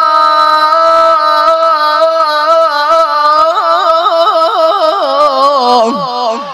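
A man reciting the Quran in the melodic tajwid style, drawing out the word 'Allah' of 'udhkurullah' in one long breath. The note is held steady for about three seconds, then breaks into quick wavering ornaments and drops in pitch near the end.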